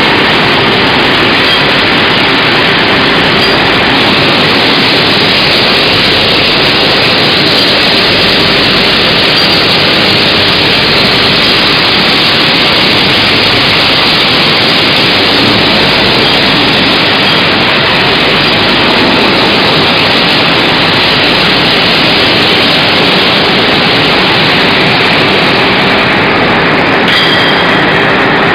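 CNC shaft induction hardening machine running: a loud, steady, even rushing noise with faint steady whines through it, changing slightly near the end.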